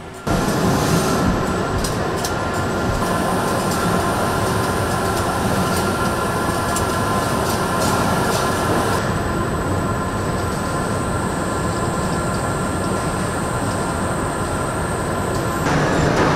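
Steady car-assembly-plant machinery noise: a dense mechanical rumble with a few faint steady tones and scattered clicks. The sound shifts about nine seconds in and again near the end.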